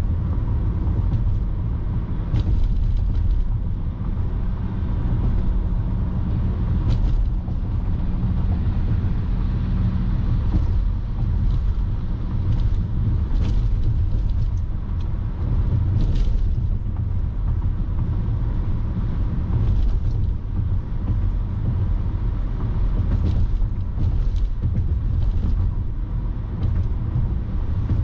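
Car driving steadily on the road, its engine and tyre rumble picked up by a dashcam mic inside the cabin, with a few light clicks here and there.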